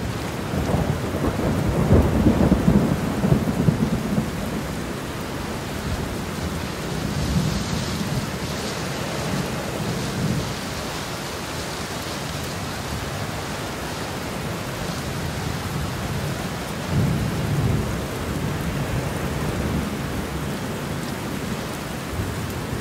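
Thunderstorm: steady rain hiss with deep rolls of thunder, heaviest about two to four seconds in and again about seventeen seconds in, then cutting off suddenly.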